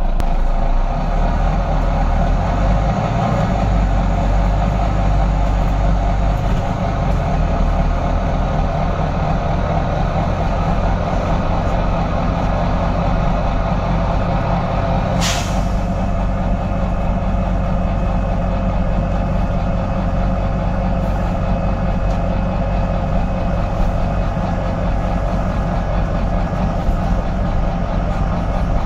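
Volvo B9TL double-decker bus's straight-six diesel engine and drivetrain running with a steady low drone, heard from the upper deck. About fifteen seconds in comes one short, sharp hiss of released compressed air from the bus's air system.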